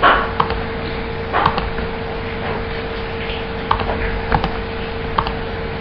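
Steady electrical hum with scattered short clicks from a computer mouse, and two brief louder noises, one at the start and one about a second and a half in.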